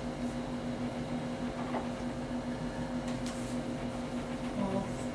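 Steady low electrical hum of room noise, with a few faint, brief squeaks of a marker pen writing on a whiteboard.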